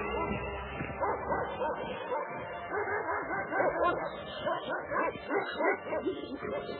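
A dog barking and yipping in many short, uneven calls, heard through a muffled, low-fidelity recording.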